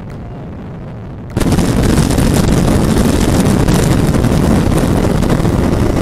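Sport motorcycles held flat out at about 140 km/h in top gear, heard from a helmet-mounted camera as a steady rush of wind and engine noise. About a second in, the sound jumps suddenly much louder and rougher, with wind buffeting the microphone, as the audio switches from the KTM RC200 to the Yamaha R15M at about 145 km/h.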